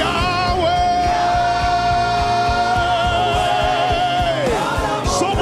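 Live gospel worship music: a band with drums, bass and keys playing under singing, with one long held note from about half a second in that falls away after about four seconds.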